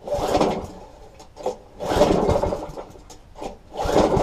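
Tecumseh lawn mower engine pull-started three times, about two seconds apart, each pull of the recoil starter cranking it over with a short rasping rattle. On the third pull near the end it fires and keeps running on fuel squirted into the cylinder, the tank still empty.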